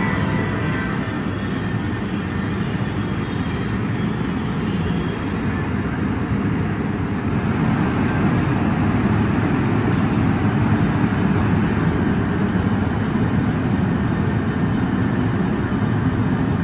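NJ Transit train rolling along the platform track with its electric locomotive at the rear: a steady low rumble of wheels and running gear that grows a little louder about halfway through.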